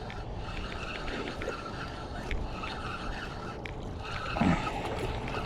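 Fishing reel working while a bass is brought in on a topwater lure: short, repeated whirring bursts over a steady hiss.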